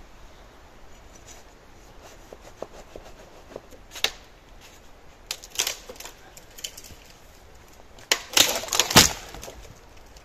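Scattered sharp knocks and cracks, growing busier partway through, with a quick run of louder cracks about eight to nine seconds in.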